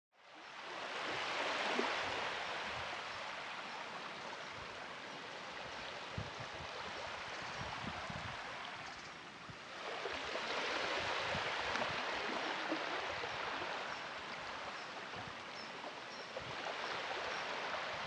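Gentle small waves washing over shallow water onto a sandy beach, a steady hiss that eases about halfway through and then swells again.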